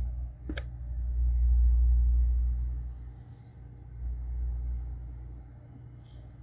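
A low rumble that swells and fades twice over a steady low hum, with a single click about half a second in.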